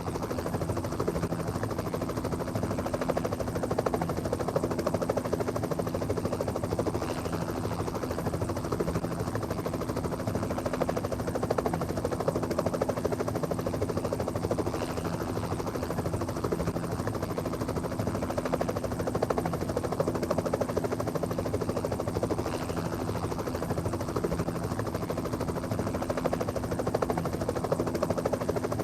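A steady mechanical drone with a constant low hum, from a running vehicle, which starts suddenly and holds level throughout.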